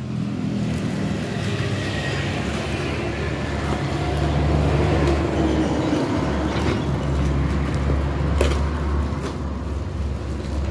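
An engine running steadily at a low, even pitch, settling into a slightly different note about six seconds in, with a few sharp clicks and knocks over it.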